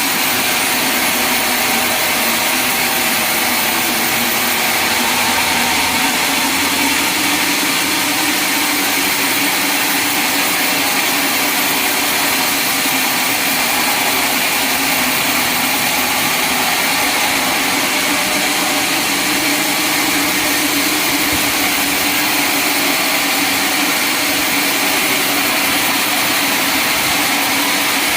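Sawmill saw running, a loud, steady machine noise with held tones that does not change or break.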